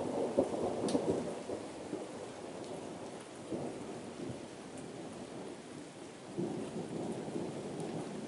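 Thunder rumbling over steady rain: the loudest part in the first second or so, easing off, then a second rumble swells up about six and a half seconds in.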